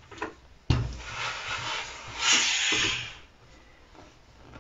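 A steam iron is set down on the ironing board with a knock, then presses through a cloth with a hiss of steam that swells about two seconds in and dies away. It is fusing iron-on interfacing to collar pieces.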